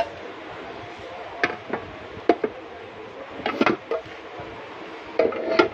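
Nested non-stick saucepans clinking and knocking against each other as they are handled in a stack: several separate sharp clinks, some with a brief ring.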